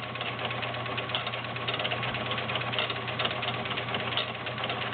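Kenmore model 1400 sewing machine running steadily while sewing a stretch stitch: a fast, even clatter of needle and feed over the motor's hum.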